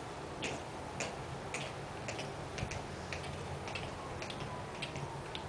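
Hard-soled shoes clicking on concrete: footsteps at about two a second, turning more irregular later as more than one person walks. A low steady hum runs underneath.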